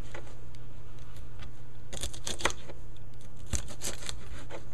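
Knife chopping long beans (bora) into short pieces on a cutting board: clusters of quick sharp taps, a few a second, about two seconds in and again from about three and a half seconds, over a steady low hum.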